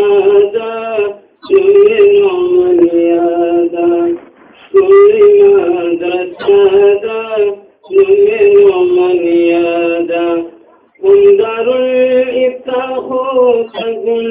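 A single high voice singing a Pashto naat unaccompanied, in phrases of about three seconds broken by short pauses for breath.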